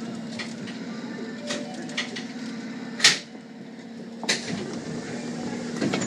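Subway train interior: a steady electric hum with a few light clicks, a sharp bang about three seconds in and a second knock about a second later.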